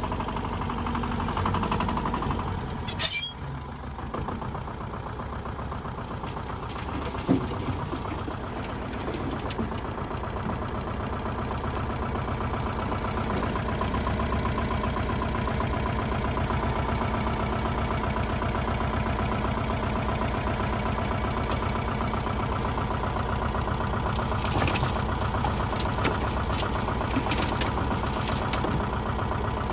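Heavy construction machine's diesel engine running steadily, with a short break about three seconds in and a single knock about seven seconds in.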